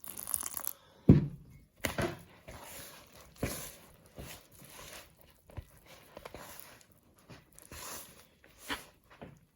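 Dumpling dough of flour and water being mixed in a bowl: irregular scrapes and knocks, with one loud thump about a second in.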